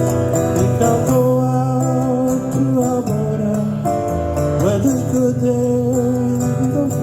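Live folk-country music: strummed guitar with keyboard holding chords between sung lines, and a steady pulse of light rhythmic ticks.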